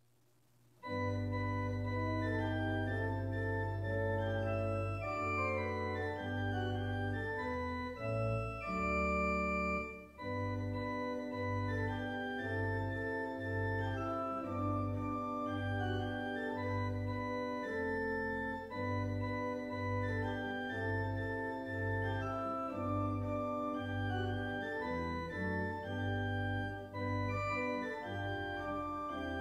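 Organ music: sustained chords over low bass notes, starting suddenly about a second in after silence. From about ten seconds in the bass notes fall on a steady beat, roughly one a second.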